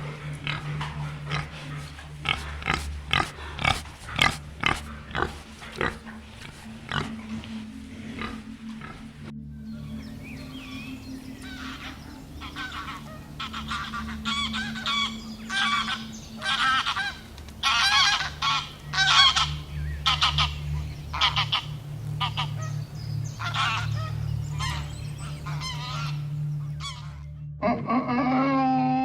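Animal calls in three clips. First a fast run of short clicks. After a cut about nine seconds in comes a series of loud, short pitched calls one after another. Near the end a different animal's drawn-out call begins.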